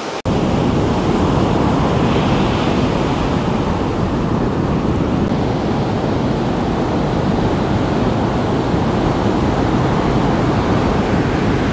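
Steady rush of breaking ocean surf, with wind noise on the microphone.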